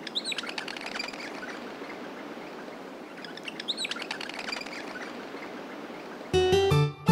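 Birds chirping over a steady outdoor background hiss, then a music track with plucked guitar begins about six seconds in.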